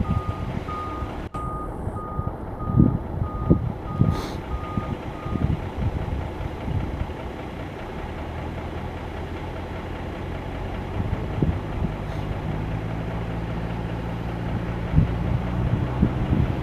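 Reversing beeper of an airport ground vehicle, beeping steadily about one and a half times a second for the first five seconds, over gusts of wind on the microphone. About eight seconds in, a steady low engine drone sets in.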